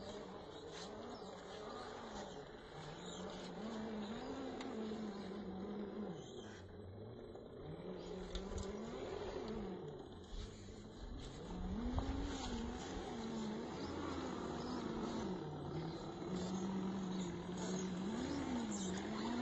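Electric drive motor and gearbox of a 1/10-scale SCX10 II–style RC rock crawler whining as it crawls, the pitch rising and falling again and again with the throttle. A thud about twelve seconds in.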